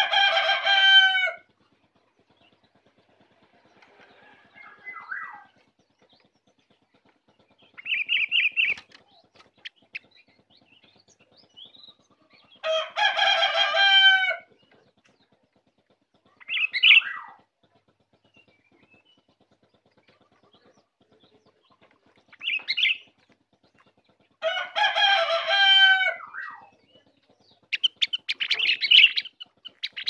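A rooster crows three times, about twelve seconds apart, each crow lasting about a second and a half. Between the crows come several short, high bird calls.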